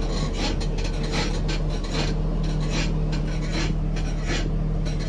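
Nissan 350Z creaking from the rear as the car moves: short rasping creaks repeating about two to three times a second over a steady low engine hum. The owner blames the rear suspension and is replacing the shocks.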